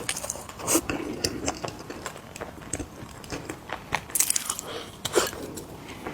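Close-up crunching and chewing of mini cookies: irregular crisp crunches, with louder bites about a second in, near four seconds, and near five seconds.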